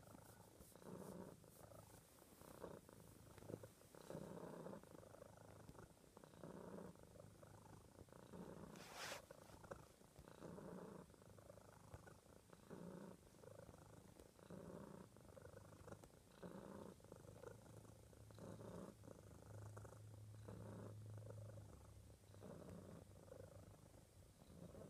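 A domestic cat purring continuously and softly, the purr swelling and easing with each breath, roughly once every three-quarters of a second. One brief sharp sound comes about nine seconds in.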